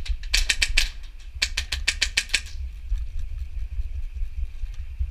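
Airsoft guns firing in two rapid bursts of sharp snapping shots, about five in the first and eight or nine in the second, then only faint scattered shots for the rest.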